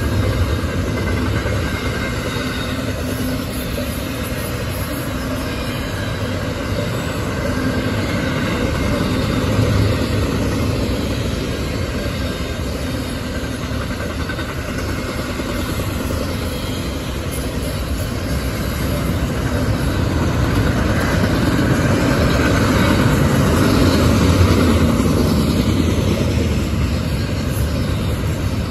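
Double-stack intermodal container cars of a CSX freight train rolling past: a steady rumble of steel wheels on the rails that swells about ten seconds in and again past twenty seconds.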